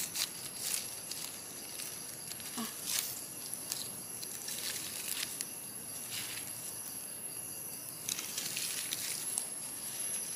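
Scattered rustles and crackles of dry forest leaf litter, over a steady high-pitched insect drone.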